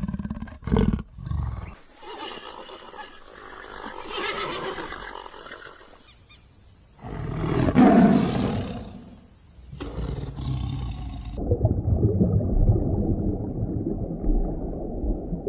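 A series of animal calls from clips cut together, changing every few seconds, with one loud call about eight seconds in. The last few seconds sound muffled, with no high sounds.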